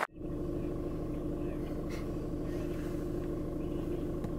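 Car engine idling steadily, heard from inside the cabin.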